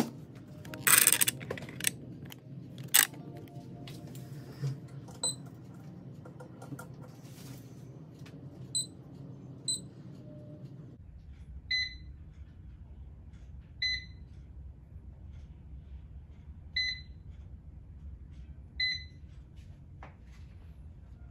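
Touch control panel of a Baumann Living multi air fryer beeping as its buttons are pressed: seven short high beeps, a second or two apart. In the first few seconds, a few knocks and clatters as the oven's glass door is handled and closed.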